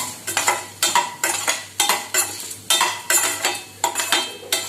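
A spatula scraping and stirring whole spices and lentils around a pan in quick, even strokes, about three a second, as they dry-roast in a little oil.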